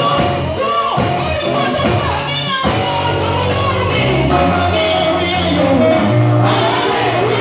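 A woman singing loudly into a microphone over amplified instrumental backing, her voice gliding between notes above steady held bass notes.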